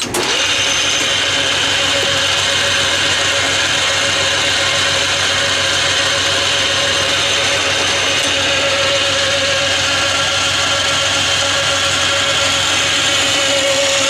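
Hardinge HLV-H toolroom lathe switched on, coming up to speed within a fraction of a second, then running steadily: a constant spindle and drive hum with a steady whine over it.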